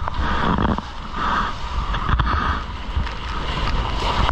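Surfer's arms paddling a surfboard through seawater: repeated splashing and swishing strokes about once a second, over a low wind rumble on the microphone.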